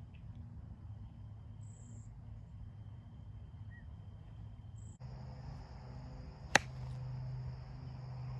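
Crickets chirring steadily in the background, their pitch changing about halfway through. About six and a half seconds in, a single sharp crack of a golf club striking the ball.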